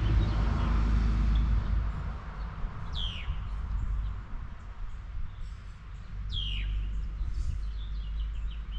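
A bird calling twice, each call a quick downward-sweeping whistle, with faint twittering around them. Under it is a low rumble that eases after the first couple of seconds.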